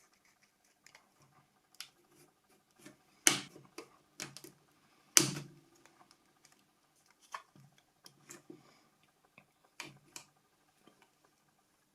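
Small plastic clicks and taps of a Nokia C5 mobile phone being worked apart by hand, with a few louder sharp snaps about three and five seconds in as a part is pried out.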